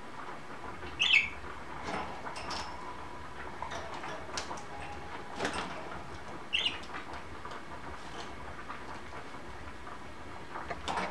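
Budgerigars chirping, two short loud chirps about a second in and past the middle, among scattered short splashing and fluttering sounds as the birds bathe.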